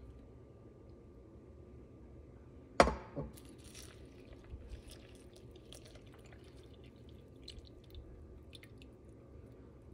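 A sharp knock about three seconds in, then milk pouring from a measuring cup onto dry oats in a slow-cooker crock, with light splashes and drips.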